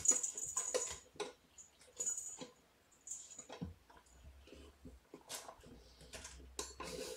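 Kittens playing on the floor: irregular scuffling, light taps and thumps, and rustling of brown paper as they jump and walk across it.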